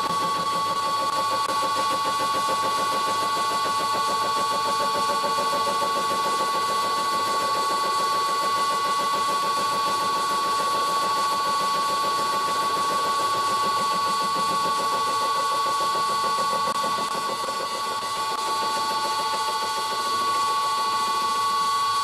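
Vintage Karger lathe running an 80 mm carbide-insert face mill (shell mill) through a face-milling cut on a steel block: a steady whine from the lathe over the fast, fine rattle of the inserts cutting. The sound dips slightly about three-quarters through, then comes back up.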